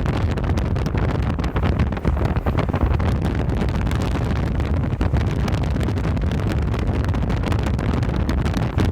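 Heavy wind buffeting the microphone: a loud, rough rumble that flutters rapidly and has no speech over it.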